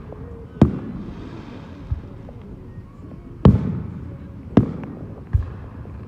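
Fireworks exploding: five sharp bangs a second or so apart, each trailing off, the loudest about three and a half seconds in.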